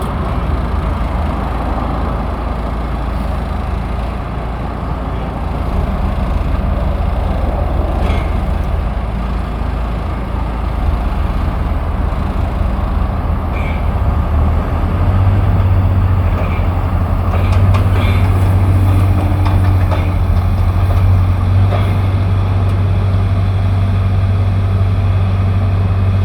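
A large vehicle or machine engine running steadily with a low hum that grows louder about halfway through, with a few faint clicks over it.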